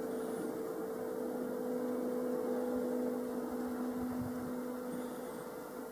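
Distant Stadler FLIRT train approaching: a steady hum with two held tones over a faint, even rushing noise.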